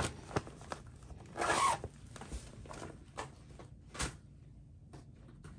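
Zipper on a mesh zipper pouch being pulled, a short rasp about a second and a half in, among a few light clicks and rustles of handled packaging.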